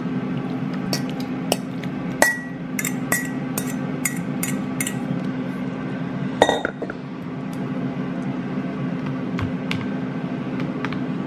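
A metal fork clinks and scrapes against a stainless steel bowl as chicken pieces are pushed out of it: about a dozen sharp, ringing clinks in the first five seconds. A louder knock comes about six and a half seconds in, then a few faint taps as the fork stirs in a plastic tub. A steady low hum runs underneath.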